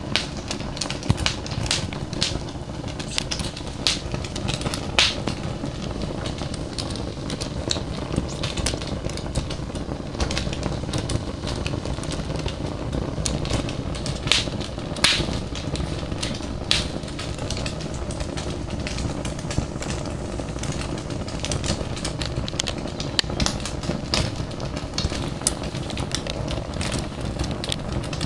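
Fire crackling, with irregular sharp pops and snaps over a steady low rumble.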